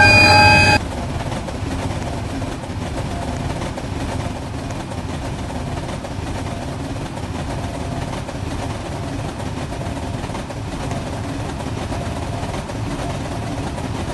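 Train horn sounding a loud multi-tone chord that cuts off suddenly about a second in, followed by the steady rumble of the train running past the level crossing.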